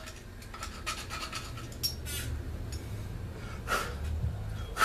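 A small metal two-stroke chainsaw piston and cylinder being handled and turned over in the hands, giving light scattered clicks, scrapes and rubbing. A faint steady low hum lies underneath.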